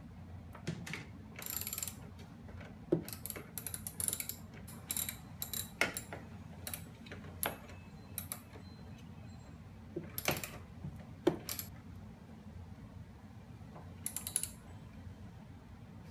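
Hand ratchet wrench clicking in short quick runs as it tightens the mounting nuts of a new side mirror on a car door, with a few sharper single knocks along the way.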